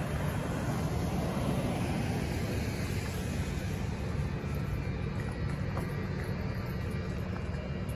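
Steady traffic noise from cars on a multi-lane road, an even low rumble with no distinct events.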